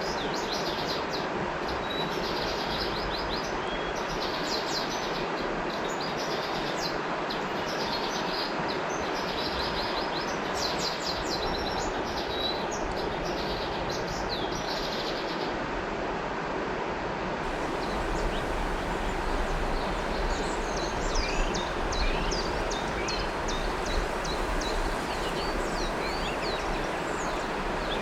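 River water flowing steadily, with many small birds chirping in quick, repeated calls above it, the chirps thinning out about halfway through.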